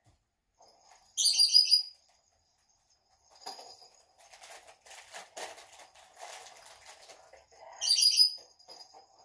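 Pet bird chirping in two short bouts, about a second in and again near the end. In between, soft rustling and light clicks as the small toy pieces and packaging are handled.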